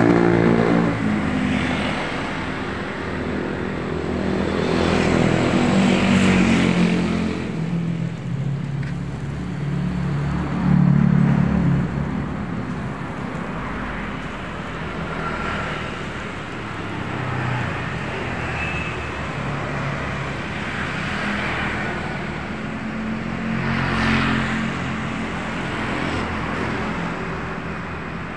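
Road traffic: motor vehicles, cars and motorbikes among them, passing one after another, each engine swelling and fading. The loudest pass comes about eleven seconds in.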